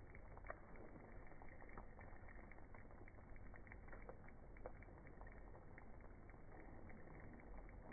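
Faint sizzling with scattered small crackles from pre-cooked beef pieces and curry leaves dry-roasting in the pan.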